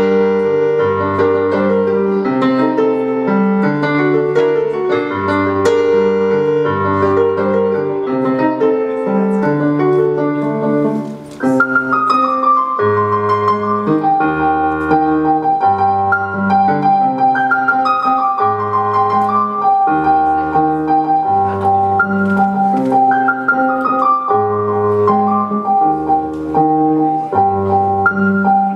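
Instrumental music on a keyboard with no singing: chords over bass notes that change about once a second. After a brief break about eleven seconds in, short falling runs of high notes repeat over a long held high note.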